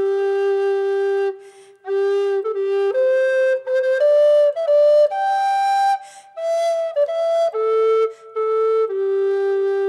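Background music: a solo wind instrument plays a slow melody of held notes, with short pauses between phrases.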